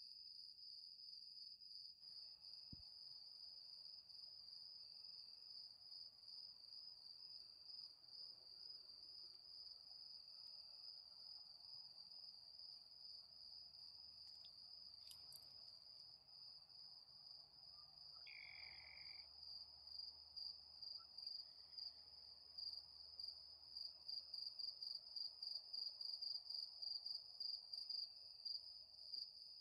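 Crickets chirping in a faint, steady high-pitched trill; in the last third the trill pulses about twice a second.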